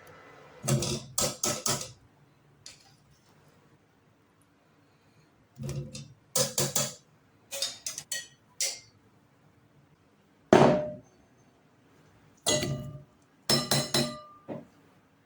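Metal kitchen utensil clinking and knocking against a cooking pot, in short groups of quick strikes every second or two, the loudest about ten seconds in: boiled potato pieces being lifted out of the pot.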